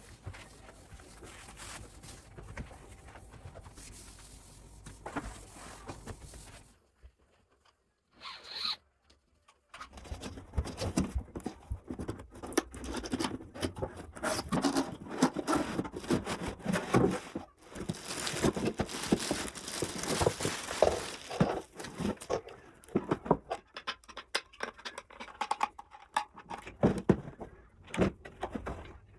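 Close handling sounds: a dense run of scraping, rustling and small clicks. It starts after a near-silent gap of a few seconds.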